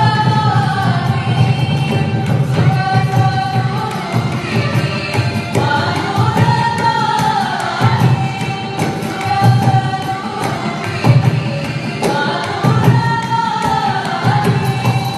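Live Carnatic music: voices singing a melodic line with sliding ornaments, accompanied by violin, with regular mridangam drum strokes underneath.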